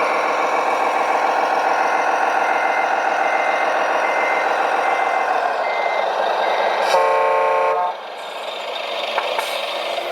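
Scale RC truck's sound module playing a diesel engine running alongside a reversing beeper, about two beeps a second. The engine sound falls away after about five and a half seconds, and a single horn blast of under a second sounds near the end, followed by a quieter idle.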